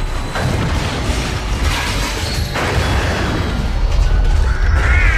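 Dubbed crash sound effects: a deep rumbling boom with sharp smashing impacts about half a second in and again around two and a half seconds, mixed over background music. A wavering high tone starts near the end.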